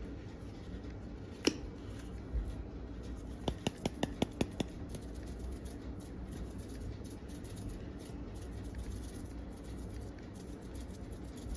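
Kitchen handling noises over a low steady background: one sharp click, then a quick run of about seven light clicks, roughly six a second.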